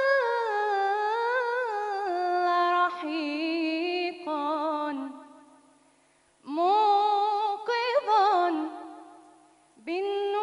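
A woman's unaccompanied voice singing an Islamic devotional chant (inshad), with long held notes that waver and turn. The singing comes in three phrases, the first about five seconds long, with short pauses between them.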